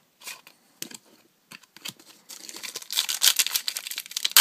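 Trading cards being handled with a few light clicks, then a foil booster pack crinkling and tearing open for the last couple of seconds, ending in a sharp snap.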